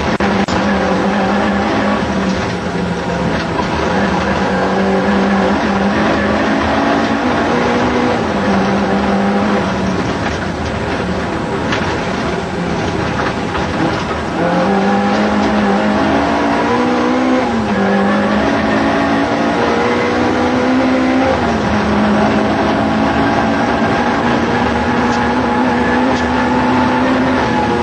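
Ford Escort Mk 2 rally car's engine heard from inside the cabin, driven hard at high revs, its pitch climbing slowly and falling back several times, over steady road noise.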